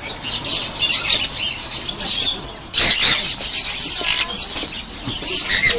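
Many caged birds chirping and calling at once, a dense high-pitched chatter, with louder calls about three seconds in and again near the end.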